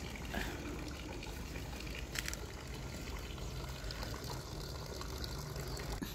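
Steady trickling and splashing of water at a garden pond, over a low steady hum, with two brief clicks about half a second and two seconds in.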